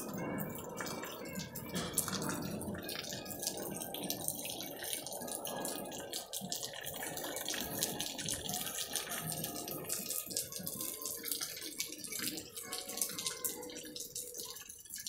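Steady rain falling, with many small drips and splashes pattering on wet concrete.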